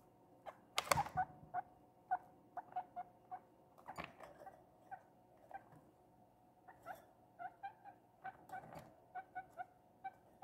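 Young guinea pig making a steady run of short squeaking calls, a few a second, with knocks and scrabbling as it climbs the wire cage; the loudest knock comes about a second in.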